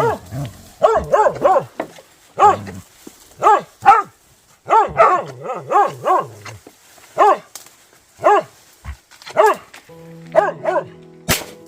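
Hunting dogs barking in rapid, repeated volleys, baying at a wild boar they are fighting. About ten seconds in, music comes in under the barks, and a sharp click sounds near the end.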